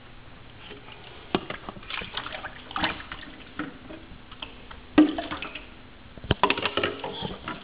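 Water splashing and sloshing as someone is washed, in irregular splashes, with the loudest splash about five seconds in and a quick run of splashes near the end.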